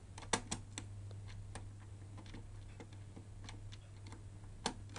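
Scattered light clicks and taps of PS4 console parts being handled during disassembly, a few sharper ones near the start and near the end, over a steady low hum.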